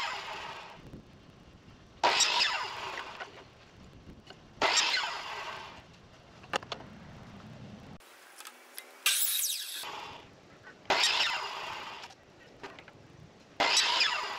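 Electric mitre saw cutting black poly pipe into short lengths: a run of about five quick cuts, each starting suddenly with the motor and blade noise and dying away as the blade spins down, two to three seconds apart with one longer pause in the middle.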